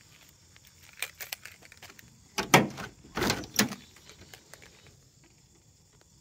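A 1967 Chevrolet Camaro's door being unlatched and pulled open: a few light clicks about a second in, then two louder clacking, rattling bursts about half a second apart.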